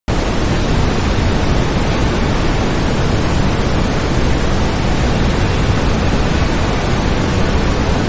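Waterfall pouring onto rocks: a loud, steady rush of water, heaviest in the low end.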